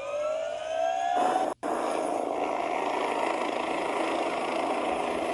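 Helicopter engine sound effect: a turbine whine rising in pitch as it spools up, switching about a second in to a steady running noise.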